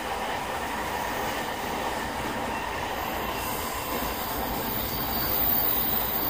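Running sound of JR East E217-series motor car MoHa E217-31, heard from inside the car: a steady rumble of wheels and running gear. A thin high-pitched tone comes in about halfway through, and the noise grows slightly louder toward the end.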